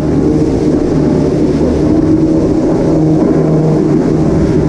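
Personal watercraft (wave runner) engine running steadily under way, its pitch wavering slightly. A low wind rumble on the microphone eases about two seconds in.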